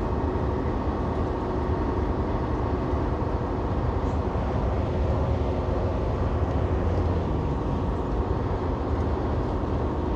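Steady engine and road noise inside the cab of a truck cruising at highway speed: a constant low rumble with a faint steady hum.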